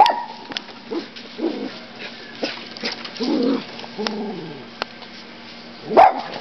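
Dog barking at a black bear: a sharp bark at the start and another near the end, with softer barks and a whine in between.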